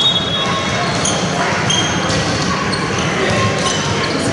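Indoor basketball game in a large sports hall: brief high sneaker squeaks on the court floor over a steady din of voices and hall noise.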